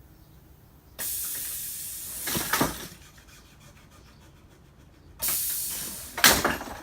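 Two bursts of hissing noise, about four seconds apart. Each starts suddenly, fades over a couple of seconds and ends in a brief sharper rush.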